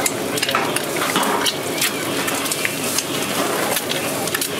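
Youtiao dough sticks frying in a shallow tray of hot oil: a dense, steady sizzle dotted throughout with many small sharp crackles and pops.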